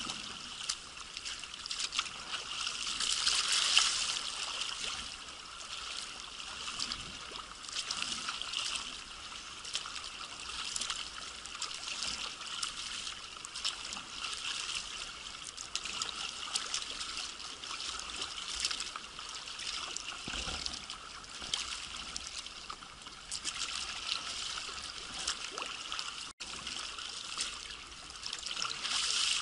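Sea water splashing and trickling around a sea kayak being paddled through foamy surf: paddle blades dipping and dripping and water washing along the hull, over the hiss of small breaking waves. The splashing is loudest about three to four seconds in.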